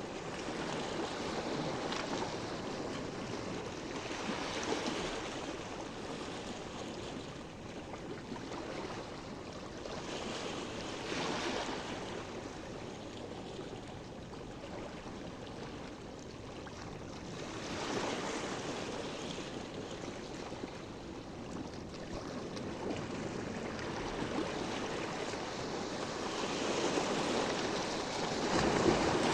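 Sea waves washing in, swelling and falling back at irregular intervals of a few seconds, with the biggest surge near the end.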